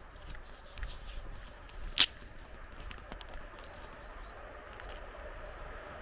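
Outdoor ambience on a walk down a dirt village lane: faint footsteps and a low rumble, with one sharp snap about two seconds in that is the loudest sound.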